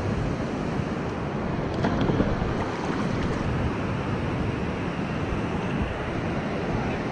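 Steady rushing noise of wind on the microphone over ocean surf.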